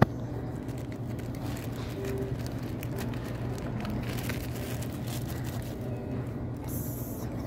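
Steady low hum of shop ambience, with faint scattered clicks and rustles and one sharp click right at the start.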